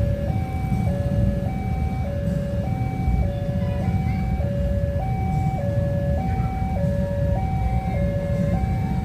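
Railway level-crossing warning siren sounding a steady two-tone alternation, a higher and a lower note each held for about half a second, over a constant low rumble.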